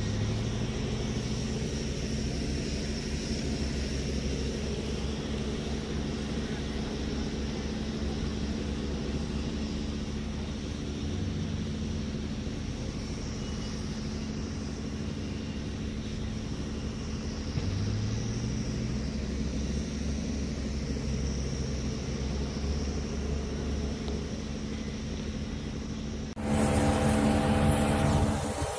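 Diesel engine of a backhoe loader running steadily as it clears ground, its pitch rising briefly twice in the middle. Near the end it gives way abruptly to a different, louder hum with several steady tones.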